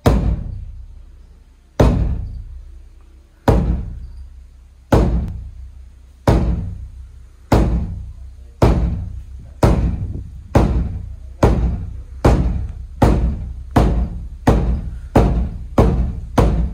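A large mosque bedug drum struck with a wooden stick, about seventeen deep booming strokes, each ringing on. The strokes come slowly at first and speed up steadily, in the traditional beating of the bedug that signals the time of prayer before the call to prayer.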